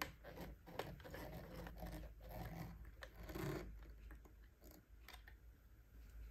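Small screwdriver turning the battery-cover screw of a plastic RC remote controller: faint scratchy crunching and clicks of the tip in the screw head and of handling the plastic case, loudest about three and a half seconds in, then a few faint ticks.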